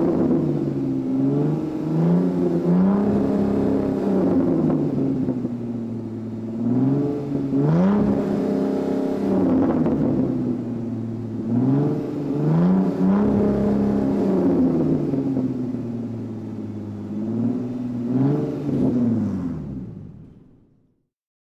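A car engine revving, its pitch climbing and dropping again and again, then fading out near the end.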